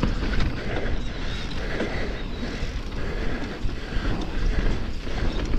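Mountain bike riding downhill on a dirt trail: steady wind rush on the microphone over rumbling tyres and a light, continuous rattle of the bike over the rough ground.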